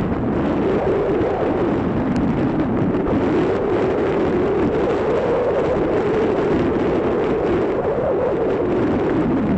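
Wind blowing hard across the microphone in a steady, loud rush, with no let-up.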